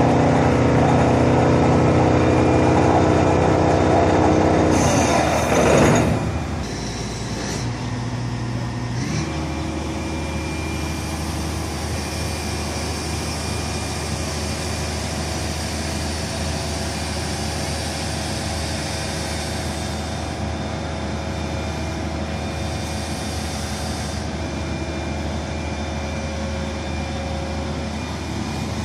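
DX420 tracked excavator's diesel engine running loud and heavily worked while the hydraulic boom moves, then, after a brief rushing surge about six seconds in, settling to a quieter steady running.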